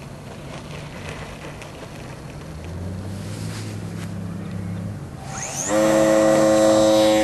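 A model airplane's engine drones steadily and low, stepping up slightly in pitch about two and a half seconds in. Near the end, background music with sustained plucked-string notes starts and is much louder than the engine.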